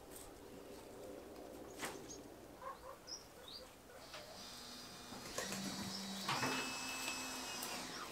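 Cordless drill-driver driving screws to fit angle brackets, its motor whining steadily in a run through the second half that gets louder a little past the middle.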